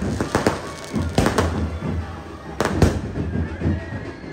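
Irregular sharp bangs, some in quick pairs, over a steady low hum.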